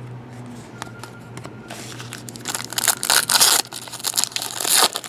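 A plastic trading-card pack wrapper being torn open and crumpled, in a run of loud crinkling bursts that starts about two seconds in, after a few light clicks.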